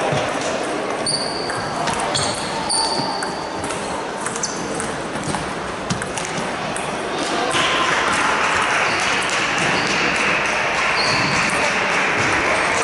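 Table-tennis ball clicking off bats and table during a rally, echoing in a large sports hall over a murmur of voices from around the hall. The background noise gets louder about halfway through.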